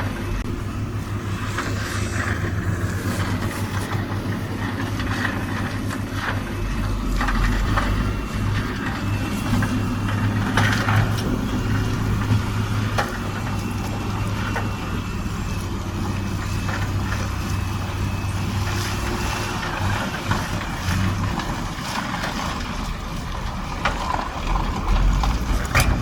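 Heavy diesel machinery engine running steadily with a low, even drone, with scattered clanks and knocks over it.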